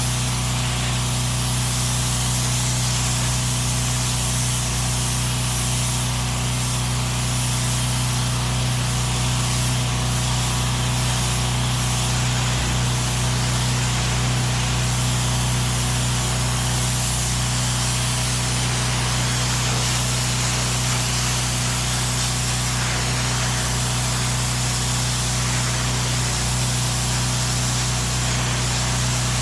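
Pressure washer running steadily: an engine hum under a continuous hiss of high-pressure water spray.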